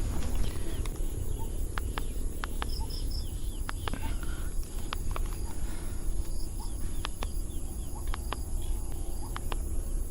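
Wind rumbling steadily on the microphone, with faint chirps of small birds and scattered light clicks over it.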